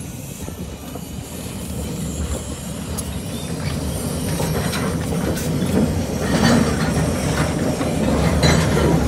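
Porter narrow-gauge steam locomotive and open passenger car rolling slowly past, getting steadily louder as they near. The wheels knock over the rail joints about once a second in the second half.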